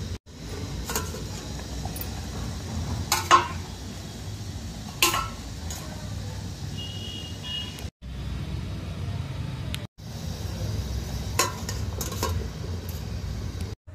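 Stainless-steel lid clinking against a steel momo steamer a few times as it is lifted off and set back, over a steady low rumble.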